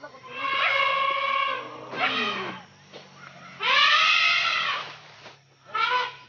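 Asian elephant trumpeting: a series of loud pitched calls, a held one near the start, a shorter falling one about two seconds in, the loudest rising and falling around four seconds in, and a brief one near the end.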